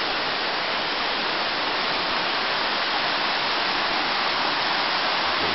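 A shallow river rushing over rocks in small rapids, making a steady, even sound of running water.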